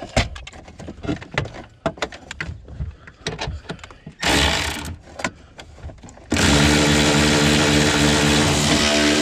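Scattered light metallic clicks and knocks from hand work on a hard-to-reach steering column mounting bolt, with a short hiss-like burst in the middle. About six seconds in, a loud steady motor starts and keeps running at an even pitch.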